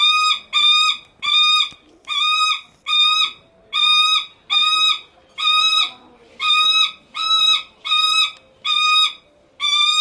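Lanner falcon calling over and over, about fifteen even, pitched calls in a steady series of roughly three every two seconds. It is attention-seeking calling, kept up to draw a keeper's notice.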